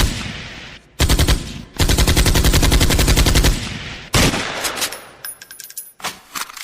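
DJ competition-style sound effect of rapid machine-gun-like hits with heavy bass, about ten a second. The hits come in bursts of one to two seconds, each trailing off into an echoing decay, with a run of lighter ticks near the end.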